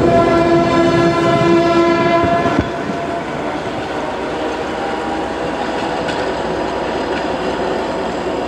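A train horn sounds one steady note and cuts off suddenly about two and a half seconds in. The passenger coaches' wheels then keep up a steady rolling noise on the rails as the train moves away.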